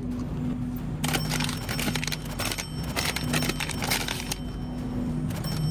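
Rapid clicking and clattering of ice cream pints being pulled off freezer shelves, over a low steady hum.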